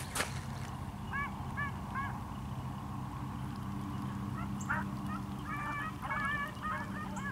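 Pack of beagles baying on a rabbit's track: three short calls about a second in, then a quicker, overlapping run of calls from about halfway through, as the hounds work the scent line.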